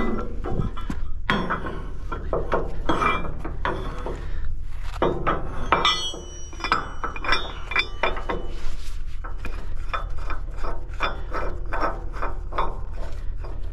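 A heavy steel rigging shackle clinking and rattling against steel as gloved hands work it into place. Short sharp metal clicks come in quick runs, with brief high metallic ringing about six seconds in. A steady low rumble runs underneath.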